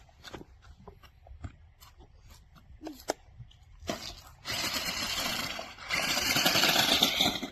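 Toy remote-control monster truck's small electric motor and plastic gears running with the wheels spinning. It starts about four and a half seconds in and gets louder about a second later, after a few light clicks and taps.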